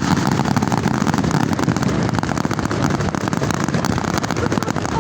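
Fireworks crackling densely and without pause, a continuous rapid crackle of many small bursts.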